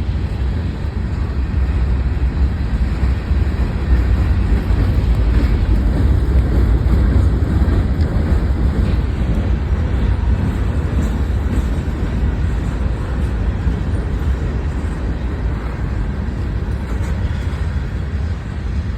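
Freight train cars rolling past: a steady, loud low rumble of wheels on the rails with no distinct clanks.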